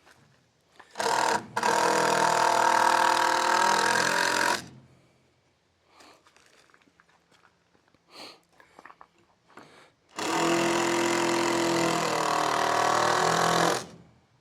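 Power drill driving two screws into wood: two steady motor runs of about three and a half seconds each, the second starting about ten seconds in.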